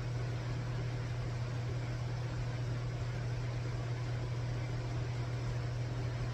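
A steady, unchanging low mechanical hum with an even hiss over it.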